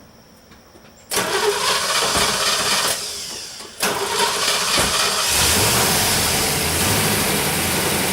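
1964 Corvette's 327 small-block V8 being started: a loud burst of starting noise about a second in, a second surge a few seconds later, then the engine running steadily.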